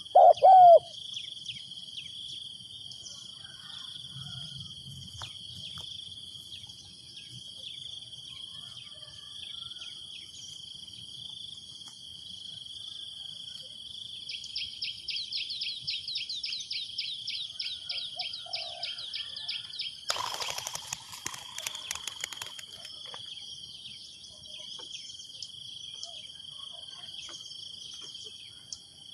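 Steady high-pitched insect drone with a spotted dove's coo fading out at the very start. About halfway, a rapid pulsing trill joins for some six seconds, followed by a brief rustling burst.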